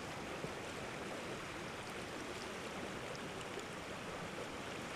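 Creek water flowing, a steady even rush.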